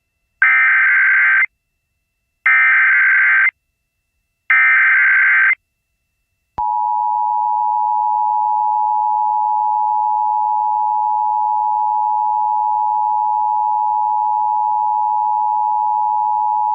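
Emergency Alert System broadcast on AM radio: three one-second bursts of SAME header data tones, evenly spaced, then after a one-second gap the steady two-tone EAS attention signal sounding for about ten seconds. It signals the start of an emergency alert, here a tornado warning.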